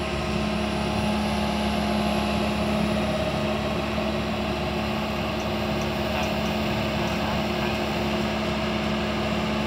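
Komatsu PC160LC hydraulic excavator's diesel engine running steadily, a constant drone, as the machine lowers a slung concrete pipe.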